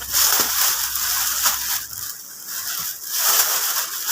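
Plastic bags crinkling and rustling in uneven bursts as a large pile of them is handled and stuffed back.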